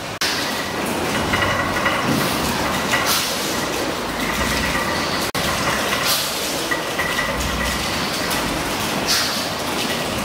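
1904 Glenfield & Kennedy Woolf compound rotative beam engine running under steam: a steady mechanical clatter and hiss from its linkages and rods, with a surge of noise about every three seconds as it turns over.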